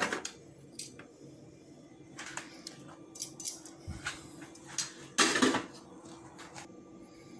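Metal kitchen tongs clinking and scraping against a metal baking tray and a china plate as a piece of barbecued fish is served out: scattered short clinks, with one louder clatter about five seconds in. A faint steady hum runs underneath.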